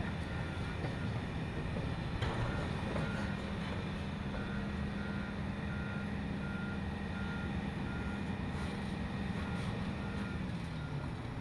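Volvo demolition excavators' diesel engines running hard as they pull at a steel structure, with an on-and-off machine warning alarm beeping at one pitch. A short crunch of metal about two seconds in, and the engine note drops near the end.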